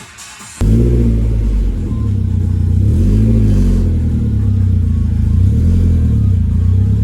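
A car engine starts up suddenly and runs at a fast idle, revved briefly about three times.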